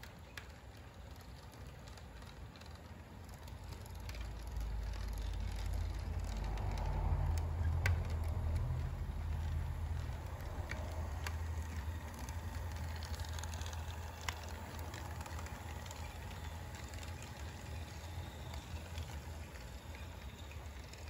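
HO-scale model train running on sectional track: a low motor-and-wheel hum that grows louder as the locomotives come close, loudest about seven to nine seconds in, then slowly fades as the freight cars roll past, with a few sharp clicks along the way.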